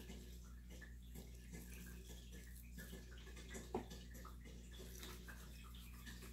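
Quiet room with a steady low hum and faint, scattered rustles and ticks of fingers pinching and sprinkling dried parsley flakes, with one soft tap about halfway through.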